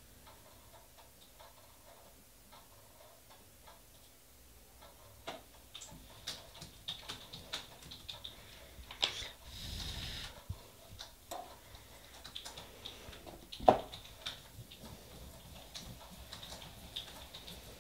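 Light clicks and taps of nail-stamping tools and polish bottles being handled on a tabletop, getting busier about five seconds in. There is a brief scrape about ten seconds in and one sharper click a few seconds later.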